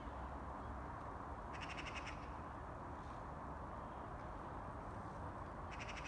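A bird gives a short call of rapid repeated notes about a second and a half in, and again near the end, over a steady low background rumble.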